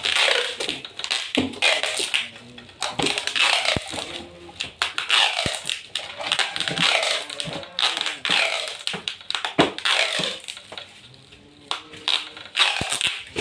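Crinkling and crackling of the tape-wrapped air conditioner pipe bundle as it is handled and bent at the wall, in irregular bursts with sharp clicks every second or so.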